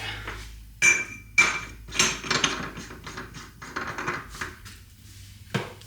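Metal hand tools clinking and clicking against the hub assembly: two sharp clinks about a second in that ring briefly, followed by a run of lighter clicks.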